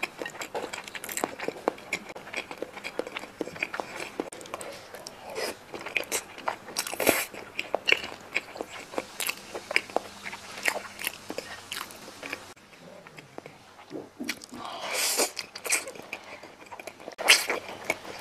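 Close-miked eating sounds of noodles in black soybean paste: chewing with many small clicks and smacks, and slurping. The longest slurp comes about fifteen seconds in, with louder ones near the end.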